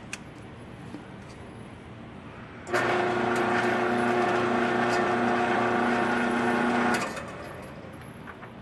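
Electric shooting-range target carrier motor running steadily for about four seconds, pulling the paper target back along its overhead track, then stopping.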